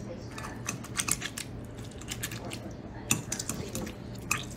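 Wire potato masher mashing pitted cherries in a glass bowl: clusters of light clicks and taps as the metal wire strikes the bowl, about a second in, around three seconds in, and once more near the end.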